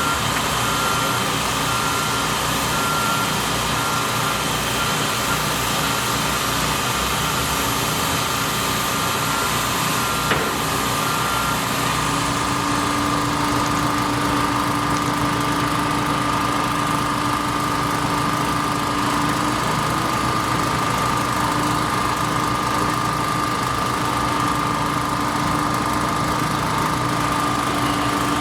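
Construction machinery engine running steadily, with a beeping tone repeating about twice a second for the first twelve seconds and a single sharp knock about ten seconds in.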